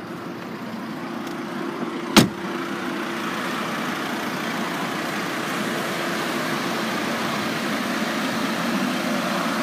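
A car door slamming shut once, a single sharp thump about two seconds in. It is followed by steady outdoor noise with a low, even hum.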